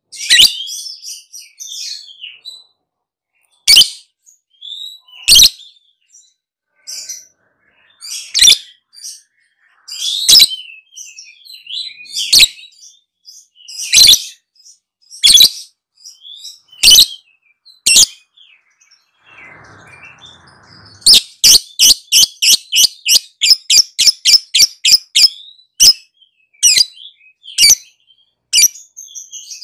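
Lovebird chattering in loud, sharp, high chirps every second or two, breaking about two-thirds of the way in into a fast run of chirps, about four or five a second for several seconds: the long 'ngekek' trill prized in lovebirds.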